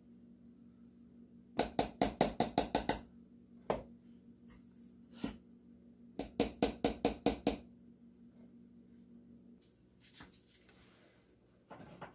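Two quick runs of sharp taps, about six a second and each lasting over a second, as a measuring cup of flour is tapped and levelled against a metal flour canister, with a few single taps between. A low steady hum underneath stops about three-quarters of the way through.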